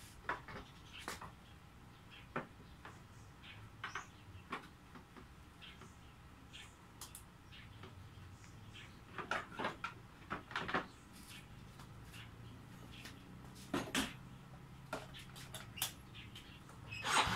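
Scattered light clicks and knocks of hands working a motorcycle's switches and plastic bodywork, with a louder rising noise at the very end as the engine is being started.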